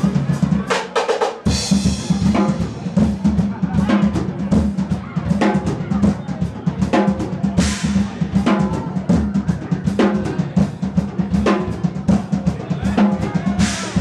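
Live drum kit solo: fast, dense bass drum and snare strokes with cymbal crashes, the low drums dropping out briefly about a second in.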